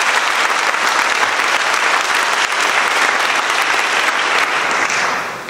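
A large audience applauding, a dense steady clapping that dies away near the end.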